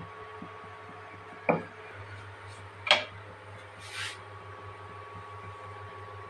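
Kitchen utensils knocking while a paratha is rolled out and put on the tawa: two sharp knocks about a second and a half apart, then a short hiss, over a steady low hum.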